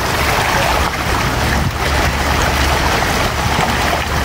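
Milkfish thrashing in a crowded harvest net, a dense, steady splashing of water.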